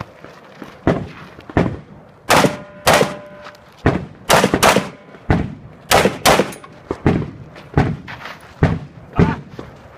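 A string of gunshots at a shooting range, about two a second and some closer together, with echo after each. A steel target rings briefly about three seconds in.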